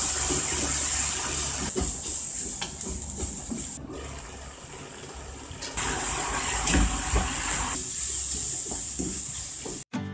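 Burdock root and meat sizzling in a frying pan as they are stir-fried, with a wooden spatula scraping and knocking against the pan. The sizzle changes level abruptly a few times, and music cuts in right at the end.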